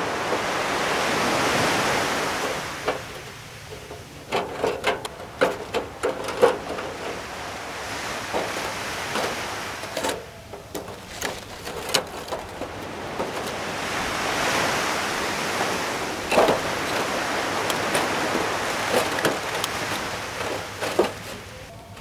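Surf washing on the shore, swelling up twice, with runs of sharp clanks and knocks from a small folding metal charcoal grill being set up and loaded with charcoal.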